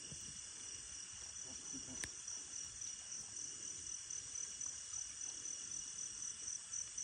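Night insect chorus: crickets trilling steadily in several high-pitched layers, one with an even pulsing beat. A single faint click comes about two seconds in.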